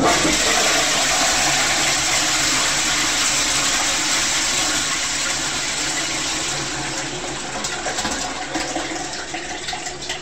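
Loud rushing water that starts abruptly and slowly fades, with a few crackles near the end.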